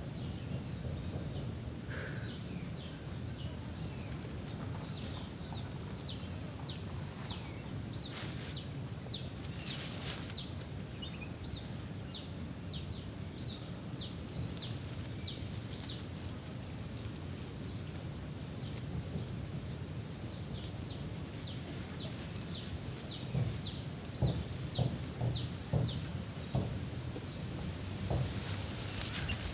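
Outdoor ambience: a steady high-pitched insect drone, with a bird repeating short falling chirps a little under two a second, breaking off midway and starting again. Two short sharp crackles sound about a third of the way in, over a low rustle.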